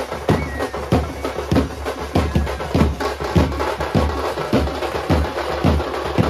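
Drums beating a steady, driving rhythm, about two heavy strokes a second with lighter strokes in between.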